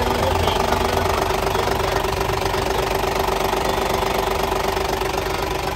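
Isuzu 6SD1 inline-six diesel engine idling steadily, with a constant hum over the diesel clatter.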